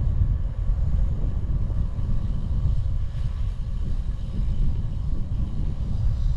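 Wind buffeting the microphone of a cyclist coasting downhill at speed: a steady low rumble.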